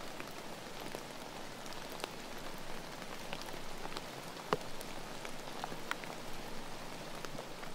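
Steady rain: an even hiss with scattered sharp individual drops landing close by, the loudest about four and a half seconds in.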